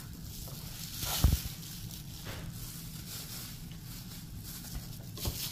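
Handling noise from adding diced onions to a stainless steel mixing bowl by a plastic-gloved hand: faint rustling over a low hum, with one sharp knock about a second in and a couple of softer ones later.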